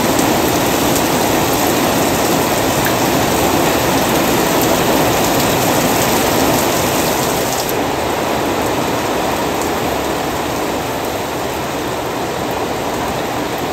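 Heavy rain pouring down in a steady, dense hiss, growing a little duller and quieter about eight seconds in.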